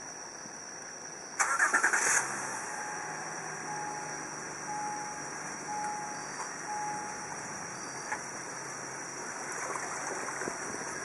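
Car engine cranking briefly with the starter and catching, then idling steadily. A warning chime beeps five times at an even pace just after it starts.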